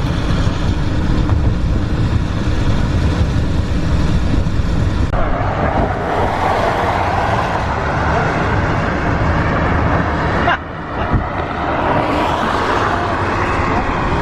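Car driving through deep floodwater: a steady engine and road rumble, with a loud rush of water churned up by the tyres that starts abruptly about five seconds in and briefly drops out near the end.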